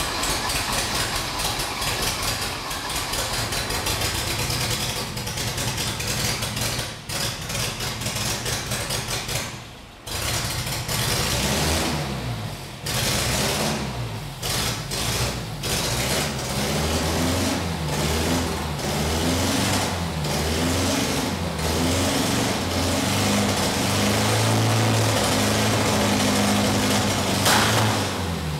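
Freshly built Ford Sierra engine with Bosch K-Jetronic fuel injection and a homemade guillotine throttle body, running on its first start. It runs rough and uneven, drops away briefly about ten seconds in, is then revved up and down several times, and near the end is held at a steady fast idle.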